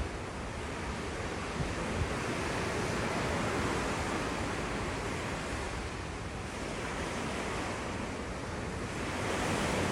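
Steady rushing noise of wind and sea waves, even throughout with no distinct events.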